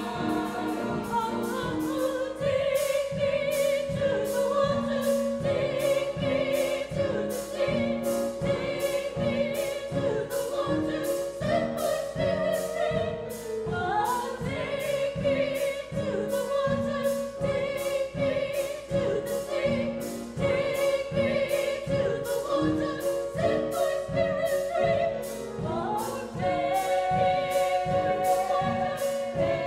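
Mixed church choir singing in parts with grand piano accompaniment, over a steady beat.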